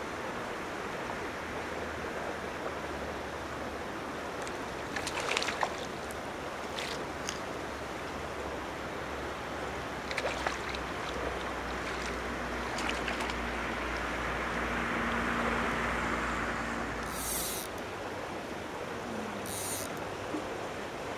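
Steady outdoor noise of wind and water, with a few brief sharp sounds scattered through it.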